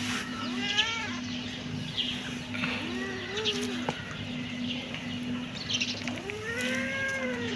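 Kitten meowing three times, the last a longer arched meow near the end.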